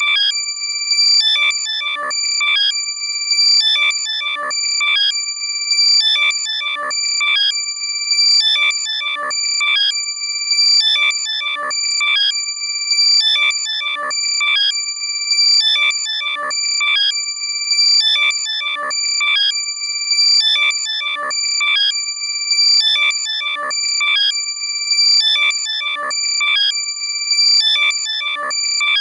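Loud, compressed electronic alert sound made to locate a lost AirPod: steady high-pitched tones under a repeating warbling chirp pattern that pulses about once a second.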